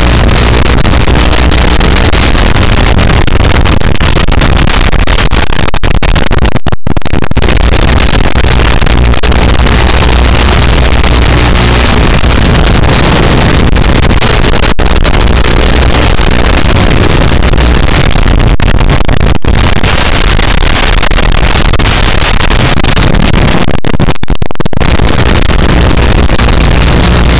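Loud, steady rushing hiss on the audio of an FPV quadcopter's analog video link, cutting out briefly twice.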